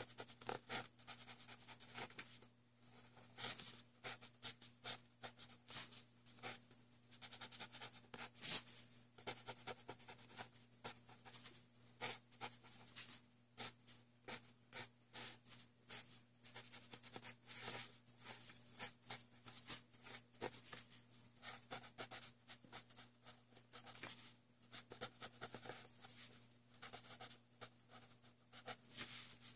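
Ballpoint pen scratching on paper while drawing, in many short, irregular strokes.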